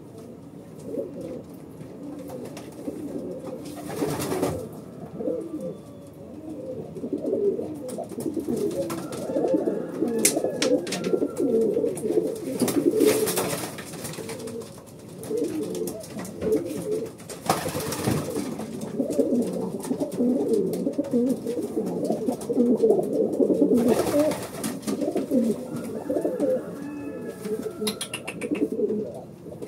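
Many racing pigeons cooing together in a small loft, a continuous low overlapping warble, with a few short rushes of noise now and then.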